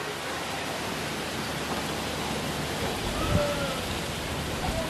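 Steady hiss of heavy rain in gusty wind, with a brief low gust a little past the middle.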